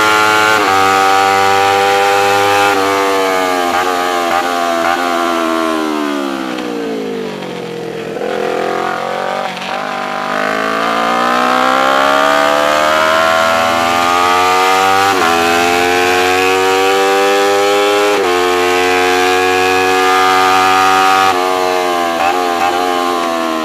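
Race motorcycle engine at full track speed. The revs fall for several seconds as it slows for a corner, then climb hard under acceleration with two sharp drops at upshifts. Near the end the pitch dips several times in quick succession.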